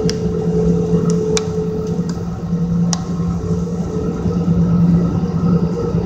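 Steady rumble of a moving passenger train heard from inside the coach, with a low steady hum and a few sharp clicks in the first three seconds.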